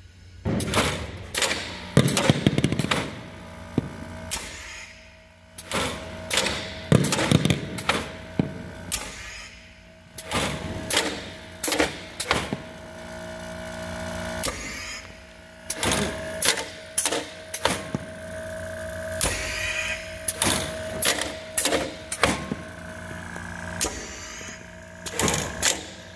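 Pneumatic t-shirt launcher robot working: many sharp clicks and clacks from its valves and moving mechanism, with several loud hisses of air. The first come a couple of seconds in and about seven seconds in. A steady mechanical hum joins partway through.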